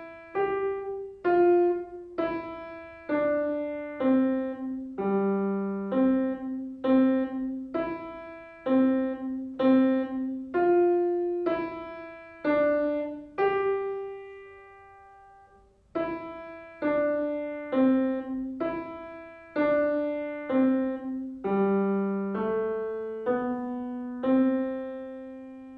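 Yamaha grand piano playing a simple melody of single notes in the middle register, about one or two notes a second, as played by a young beginner. About two-thirds of the way through, a held note fades away almost to nothing before the tune starts again.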